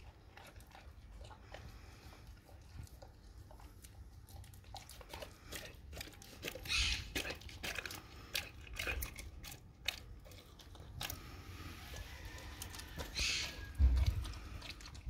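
A dog chewing and biting a raw cow tongue: many short wet clicks and smacks of its jaws. Two brief hissing bursts come about seven and thirteen seconds in, and a loud low thump near the end.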